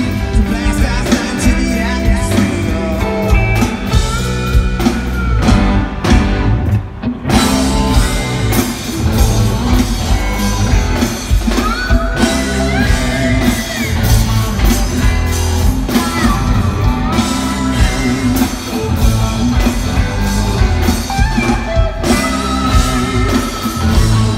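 Live rock band playing over a festival PA, heard from the crowd: electric guitars, bass and drum kit, with singing.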